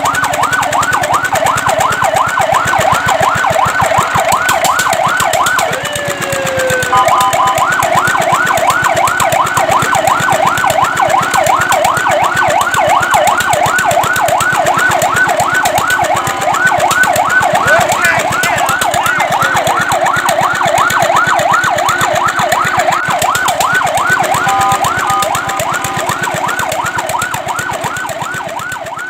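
Fire truck siren in a fast yelp, several rising sweeps a second. About six seconds in it breaks into a falling glide and a brief steady tone before the yelp resumes, with another short steady tone around twenty-five seconds in; it fades toward the end.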